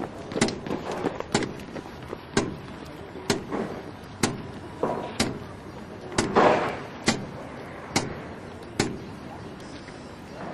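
Flatwater sprint kayak paddle blades catching the water in a steady rhythm, about one sharp splash a second, with a wash of water noise between strokes.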